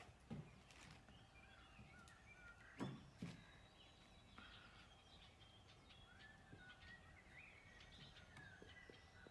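Faint birds chirping with short calls throughout, and a few soft knocks in the first few seconds, the loudest about three seconds in.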